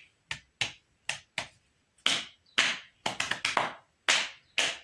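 Body percussion: hands clapping and slapping in a rhythmic pattern, a string of sharp strokes that are sparser and quieter at first, then louder, with a quick run of several strokes in the middle.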